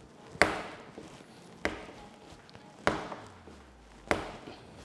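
Sourdough bread dough being kneaded by slap and fold: slapped down onto the counter four times, about once every second and a quarter.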